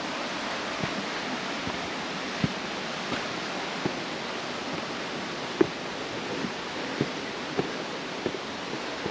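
Steady rushing of a mountain stream below, with footsteps thudding on the suspension bridge's walkway at a walking pace, roughly every 0.7 s.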